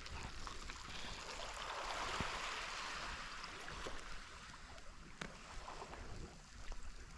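Small waves washing and trickling over shore rocks, swelling about two seconds in and then easing, with a few faint clicks.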